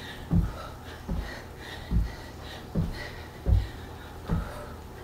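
Footfalls of skater jumps on a floor: a regular series of low thuds, one landing about every 0.8 s.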